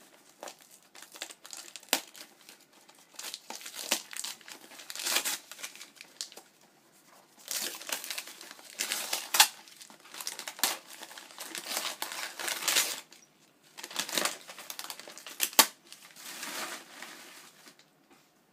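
Packaging being crumpled and torn off a gift by hand: irregular crinkling bursts with sharp crackles.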